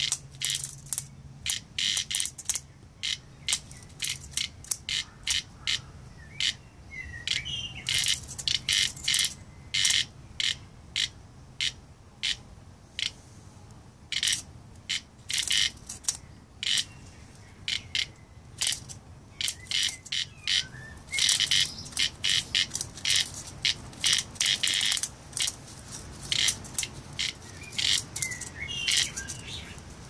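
A cicada giving short, harsh buzzing bursts over and over, in irregular clusters, as a puppy paws and mouths it: the insect's distress call. A bird chirps faintly now and then.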